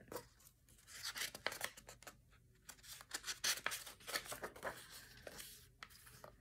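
Faint rustling and light clicks of a hardcover picture book's paper pages being handled and turned, in scattered short bursts.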